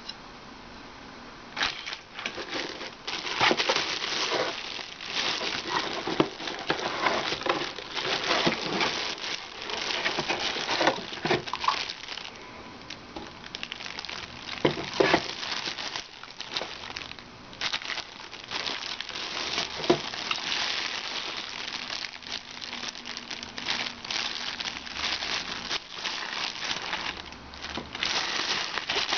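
Packaging being unwrapped and handled: continuous crinkling and rustling with many sharp clicks, starting about a second and a half in.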